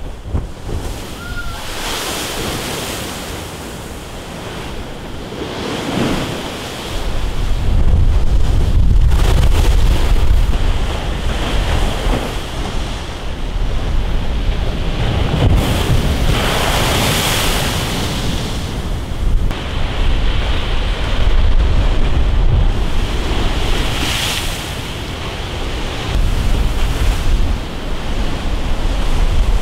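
Heavy hurricane swell breaking in repeated surges against a concrete sea wall, with churning white water washing between breakers. Wind rumbles on the microphone from about seven seconds in.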